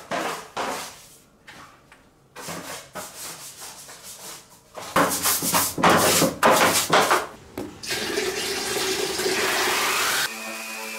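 Water splashing in uneven bursts as parts are rinsed, loudest a few seconds in, then a steady spray of running water for about two seconds. Music with held notes comes in near the end.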